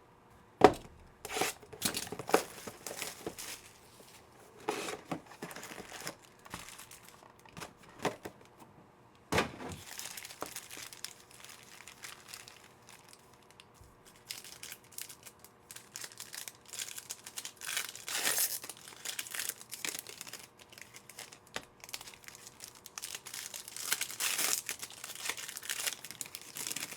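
Foil trading-card pack wrappers being torn open and crinkled by hand, in an irregular run of crackles and rips, with one sharp snap near the start.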